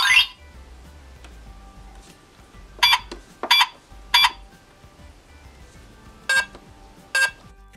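Hello Kitty toy electronic cash register making its button sounds: a rising electronic sweep right at the start, then three short beeps about two-thirds of a second apart, and two more beeps near the end. Faint background music plays underneath.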